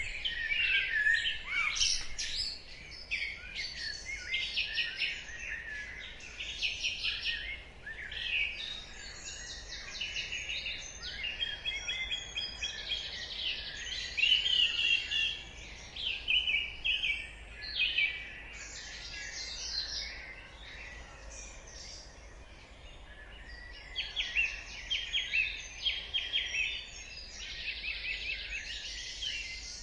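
Dawn chorus of several songbirds singing and chirping at once, overlapping trills and high whistles, with a lull of a few seconds after the middle, over a faint low hum.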